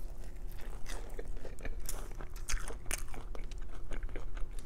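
Close-up crunching and chewing of a piece of crispy fried spring roll, a quick irregular run of crackles.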